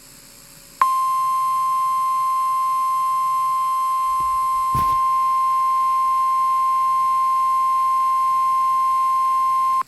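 NOAA Weather Radio warning alarm tone, a single steady tone of about 1050 Hz. It starts abruptly about a second in, holds level for about nine seconds and cuts off sharply, signalling that a warning broadcast follows. Faint radio hiss is heard before it, and a brief click comes midway.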